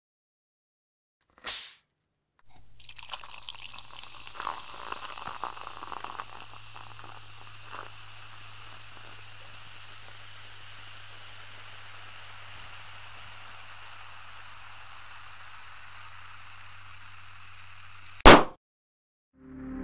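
A quick swish, then a long steady hiss that crackles and fizzes for its first five seconds or so, cut off near the end by one sharp, loud bang: a rubber balloon popping.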